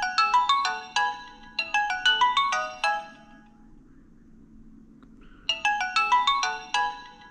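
Samsung Vibrant alarm tone playing through the phone's speaker: a short melody of quick, bright chiming notes. It stops for about two seconds and starts over.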